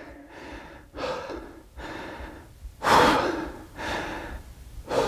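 A man breathing hard, heavy in-and-out breaths about one a second, the loudest about three seconds in: he is winded, recovering after a heavy set of back squats.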